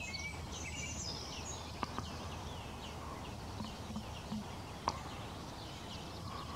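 Small birds chirping in short, high, curved notes that repeat every half second or so, over a steady low outdoor background rumble, with a couple of soft clicks.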